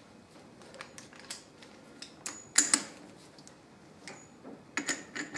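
Light metal clicks and clinks of hand tools and parts against the end of a Hewland Mk 8 gearbox as the gear-shaft nuts are worked; scattered taps with a sharper, briefly ringing clink about two and a half seconds in and a quick run of clicks near the end.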